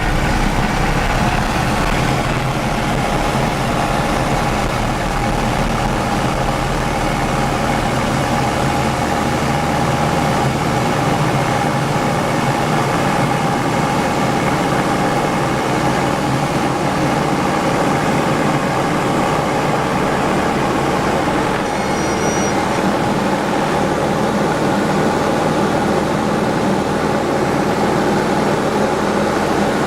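Diamond DA20-C1's four-cylinder piston engine and propeller running steadily, its lowest drone shifting about a third of the way through. A brief faint high tone sounds about two-thirds of the way in.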